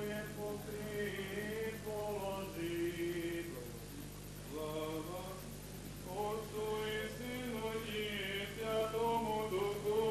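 Men's voices chanting a slow religious hymn, long held notes in phrases with short breaths between them, over a steady low hum.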